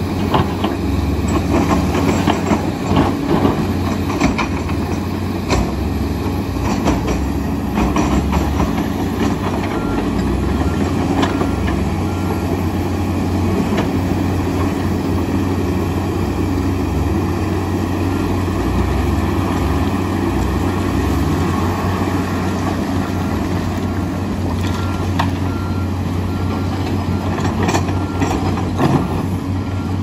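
Diesel engines of a tracked excavator and a Komatsu D85EX bulldozer running steadily under load, with rock clattering and knocking as the excavator bucket digs, mostly in the first ten seconds and again near the end. A faint repeated beep sounds at times.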